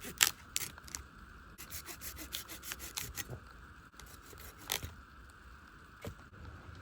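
Irregular scraping and rubbing strokes of a tool on wood, the sound of kindling being worked for a campfire.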